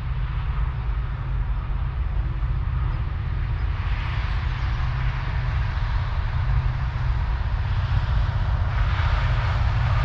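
Wind buffeting the microphone in a steady low rumble, under the rising hiss of a distant train passing across the fields, which swells about four seconds in and again near the end.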